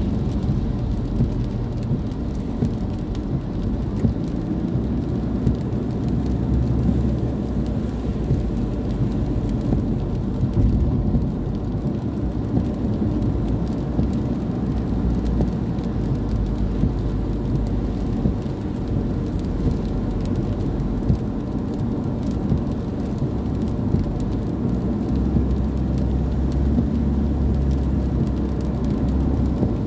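Steady engine and tyre noise inside a moving car on a wet road, with rain pattering on the windscreen.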